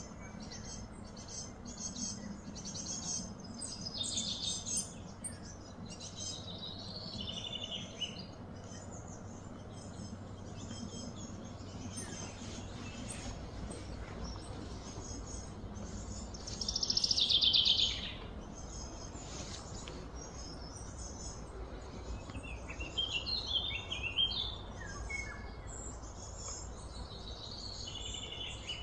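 Birds chirping and calling throughout, with one louder call that slides downward about 17 seconds in, over a faint steady low hum.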